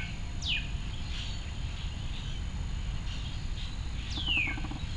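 A bird calling several times, each call a short whistle sweeping down in pitch, over a steady low rumble.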